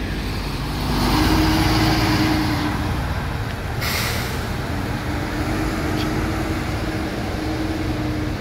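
Diesel coach bus pulling slowly past and driving away. The engine is loudest in the first couple of seconds, with a low steady whine, and there is a short hiss of air about four seconds in.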